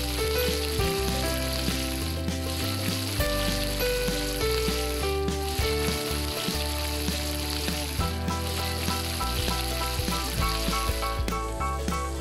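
Chicken legs and thighs sizzling in hot oil in a wok as their fat renders out, a steady frying hiss that drops away near the end, over background music.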